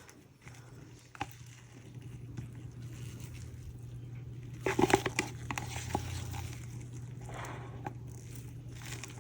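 A mixing cup scraped out with a stir stick: a click, then a few short scraping and crinkling noises over a low steady hum.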